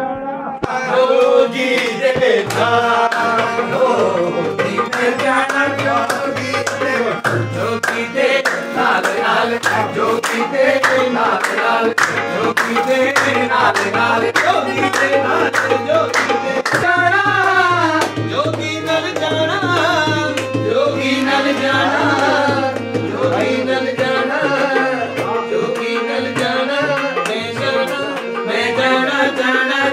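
Live harmonium playing steady chords with a dholak keeping a fast hand-drum rhythm, accompanying a man singing a Punjabi devotional-style song.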